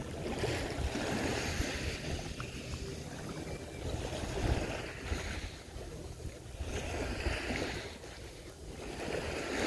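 Small waves lapping and washing onto a sandy, pebbly shoreline, swelling and fading about every three seconds.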